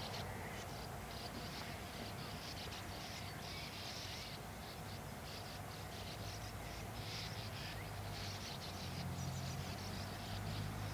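Sand martins calling at their nesting colony: repeated short, irregular runs of high, scratchy twittering. A low steady hum lies underneath and grows louder near the end.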